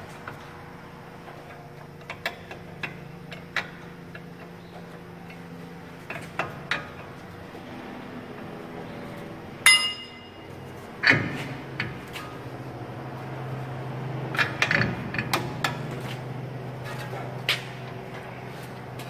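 Hand tools clicking and clinking against the steel front suspension parts of a pickup, in scattered single knocks, with one sharp ringing metal clank near the middle. A steady low hum runs underneath.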